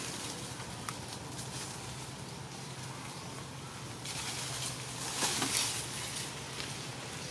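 Outdoor ambience with a steady low hum and scattered faint rustles and clicks. The rustling grows louder about five seconds in.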